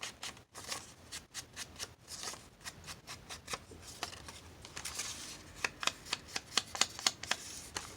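Paper being handled and rubbed with quick scuffing strokes as its edges are inked, the strokes coming thicker and faster in the second half.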